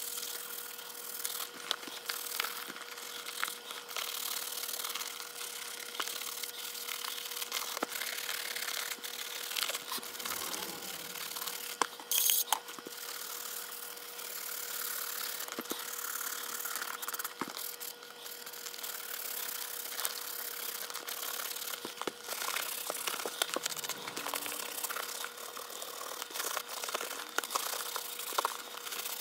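A thin wooden stick rubbing and scraping over the leather laces and shell of a Wilson A2K baseball glove: a steady scratchy rustle full of small clicks, with one sharper tap about twelve seconds in.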